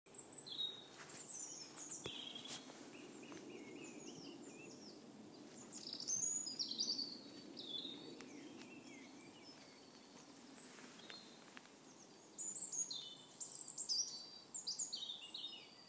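Small songbirds singing outdoors: many short chirps and trilled phrases, some falling in pitch, loudest about six seconds in and again near the end, over a faint steady low background rumble.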